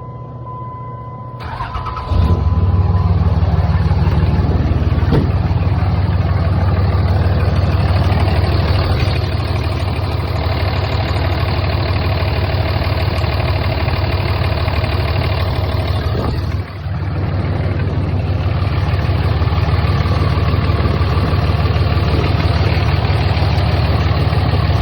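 Dodge truck engine cranked and started about two seconds in, then running steadily at idle on fresh oil and a new oil filter. A steady electronic chime sounds briefly before it starts.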